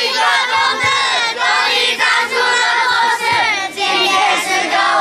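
A group of children singing together in unison, with a few adult voices among them.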